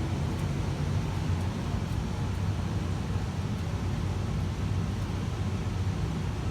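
Blower fan of a 2020 Evcon 65,000 BTU gas furnace running steadily, a low hum with air rushing through the ducts, after the burners have shut off: the post-burn fan run that cools the heat exchanger before the fan stops.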